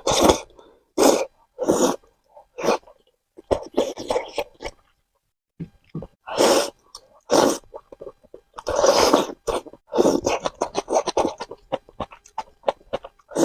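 Noodles being slurped and chewed close to the microphone, in a run of loud short bursts, some in quick clusters.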